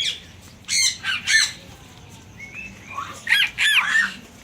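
Birds calling in short, harsh bursts: two calls about a second in, then a quick run of rising-and-falling calls near the end.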